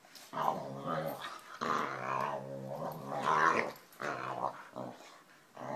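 A dog growling and grumbling in several long, wavering bouts, the insistent vocalizing of a dog demanding attention.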